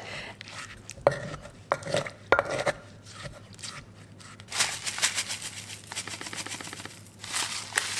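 Wooden pestle pounding and crushing cherry tomatoes in a clay mortar, with several sharp knocks in the first two or three seconds, followed later by softer rustling sounds.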